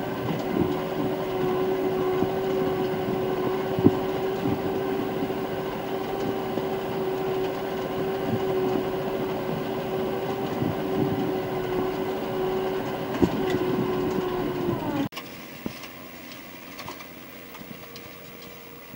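Erkunt Nimet 70e tractor engine running steadily under way, heard from inside the cab, a steady drone with a few knocks and rattles. About fifteen seconds in it cuts suddenly to a quieter sound of the tractor pulling a pneumatic seed drill, heard from outside.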